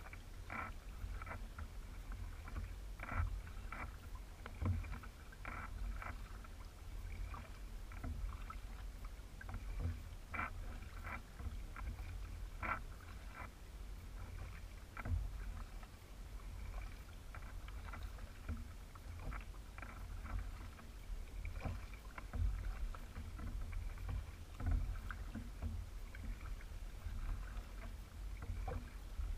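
Double-bladed kayak paddle dipping and pulling through calm water, with irregular small splashes and drips over a steady low rumble.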